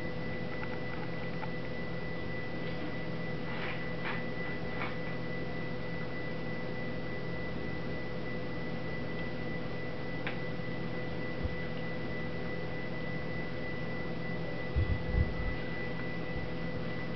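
Steady electrical room hum with two thin, high steady tones, under a few faint clicks of a spatula stirring soap batter in a plastic tub. A few dull low thumps come near the end.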